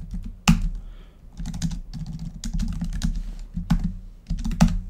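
Rapid typing on a computer keyboard as terminal commands are entered, with two harder key strikes, one about half a second in and one near the end.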